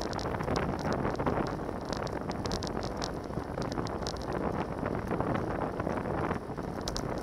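Wind rushing over the microphone of a bicycle riding at about 40 km/h: a steady, dense rush with small scattered ticks above it.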